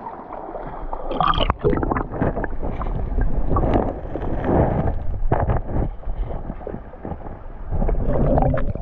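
River water splashing and sloshing in irregular bursts, as a freshly landed fish is handled in the shallows.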